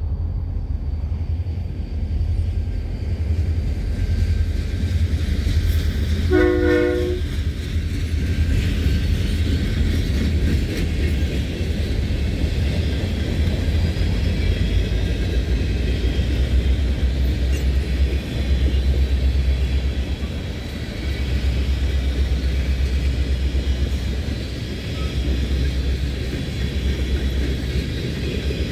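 Lake State Railway freight train with two diesel locomotives passing: a steady low rumble of engines and wheels on rail. There is a short horn blast about six seconds in, then the continuous hiss and rumble of freight cars, tank cars among them, rolling by.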